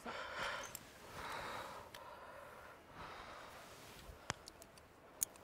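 A rock climber breathing hard under strain, with about three forceful, noisy breaths in the first three seconds; a couple of sharp clicks near the end.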